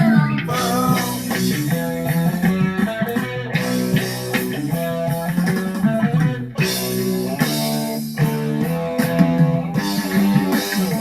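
Background rock music led by guitar, with bass and drums.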